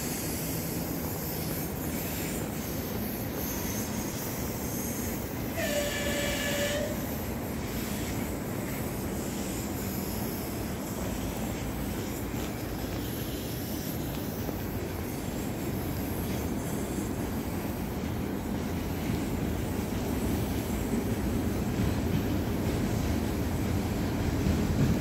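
Approaching freight train hauled by a VL10K electric locomotive: a steady rumble that grows slowly louder toward the end. About six seconds in there is one short train horn blast lasting about a second.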